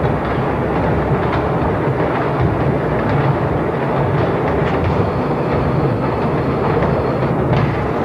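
Computer-controlled mechanical sound machines running together: a loud, dense, continuous rumble and clatter with scattered sharp clicks.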